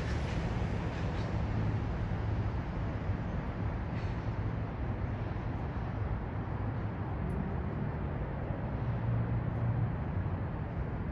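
Steady urban outdoor ambience: a continuous low rumble of city traffic with a constant hiss, nothing standing out.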